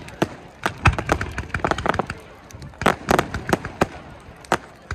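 Aerial fireworks bursting: a rapid, irregular run of sharp bangs and crackles, coming in clusters with short lulls between.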